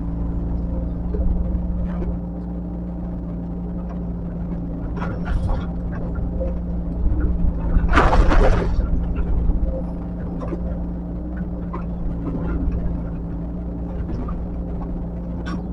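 Diesel engine of heavy earthmoving machinery running steadily. About eight seconds in there is a loud, brief noisy burst, with a few smaller clanks around it.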